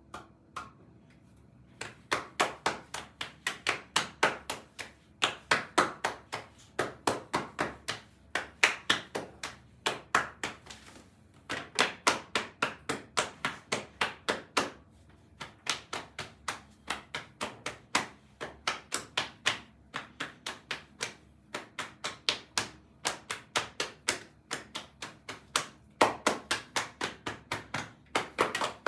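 Rapid, evenly paced slaps of hands, about five a second, in runs of several seconds with short pauses between them.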